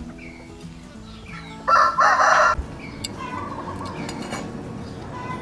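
A rooster crows once, about two seconds in, for about a second, over faint background music.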